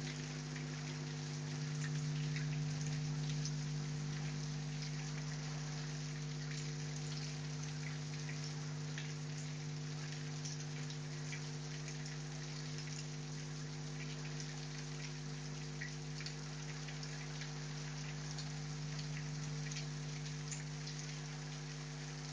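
Heavy rain falling steadily, with many individual drops ticking on a surface over the hiss, and a steady low hum underneath.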